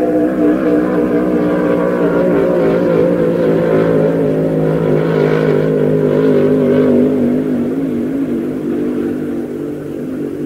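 Inboard racing hydroplane engine running hard near redline on a straightaway speed run. Its pitch holds steady, then drops slowly in the second half, and the sound eases off toward the end.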